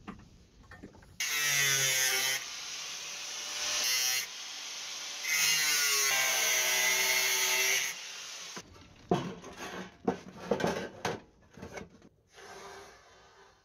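Grinder grinding the edges of a welded sheet-steel box, loud in two long stretches with a whine that dips in pitch as it bites. After about eight seconds it stops, giving way to a run of knocks and scrapes as the steel box is handled on a wooden bench.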